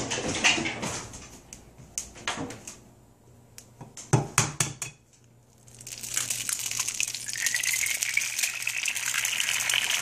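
A few light clicks and knocks, then from about six seconds in a steady sizzle as a raw egg fries in hot oil in a frying pan.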